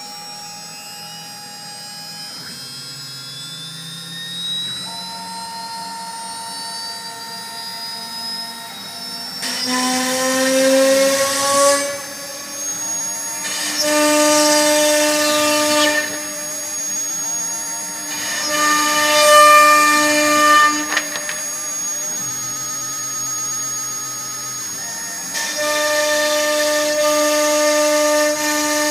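CNC wood router running: the spindle whines, with one whine rising slowly in pitch over the first ten seconds, and the axis motors hum at pitches that change with each move. Four times the spinning bit cuts into the fibreboard with a louder rushing noise lasting a few seconds.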